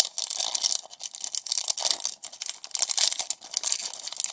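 Foil wrapper of a Pokémon trading card booster pack crinkling and tearing as it is worked open by hand, a busy crackle that swells and fades several times.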